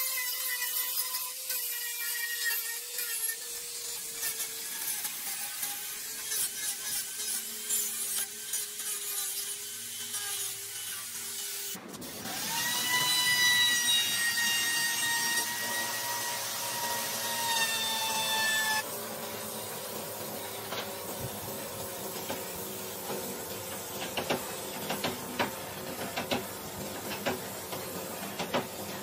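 Power tools working wood, in several spliced takes: an electric tool's motor whine that drifts slowly lower in pitch, then, after a sudden change about twelve seconds in, a louder, higher whine that also drifts down, then scraping and scattered clicks for the last ten seconds.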